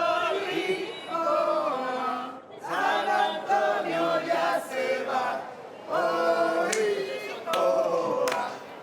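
Several voices singing together in phrases with short breaks between them, and a few sharp hits near the end.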